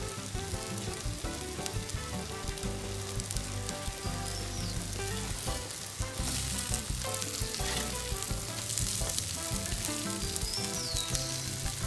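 Ground-beef burger patties sizzling steadily on a hot flat griddle, with a metal spatula scraping under a patty as it is turned.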